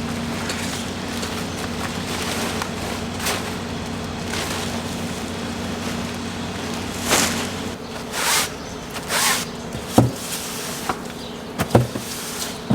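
A steady low buzzing hum that drops away about eight seconds in. Then come several brief rustling swishes and a few sharp clicks.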